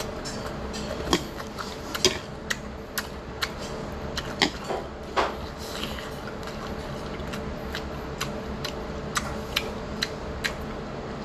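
Chopsticks clicking and tapping irregularly against a plate of sweet-and-sour pork while picking up pieces, with a dozen or so sharp clicks, more of them in the first half. A steady background hum runs underneath.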